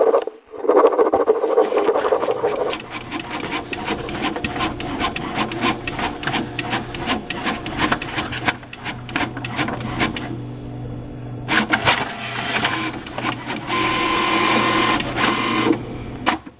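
A marker pen scratching on paper for the first few seconds, then a printer running: a rapid, uneven stream of mechanical clicks and whirs over a steady low hum, pausing briefly just after ten seconds, then resuming with a steady whine before cutting off at the end.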